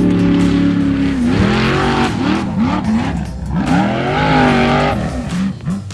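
Formula Offroad car's engine at high revs as it climbs a steep dirt hill, starting suddenly. It holds steady at first, then revs up and down repeatedly, over a hiss of spinning tyres throwing dirt.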